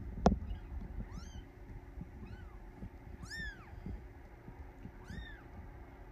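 Three-week-old Bengal kitten mewing four times, thin high-pitched mews that each rise and fall, the last two the loudest. A single sharp knock just after the start is the loudest sound.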